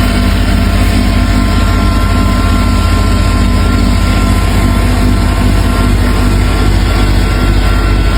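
Steady low drone of a vehicle's engine running at an even speed, with a few faint steady tones above the rumble.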